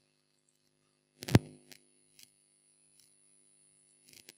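A single sharp click or knock about a second and a half in, then a few faint clicks near the end.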